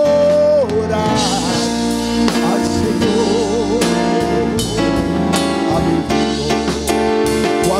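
Live gospel worship music: a man sings into a microphone, holding long notes with vibrato, over electric keyboard chords and a drum kit.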